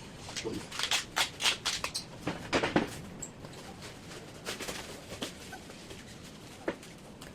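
Handling noise from packing a paintless dent repair rod set: a quick run of clicks, knocks and rustles in the first three seconds, then a few scattered knocks.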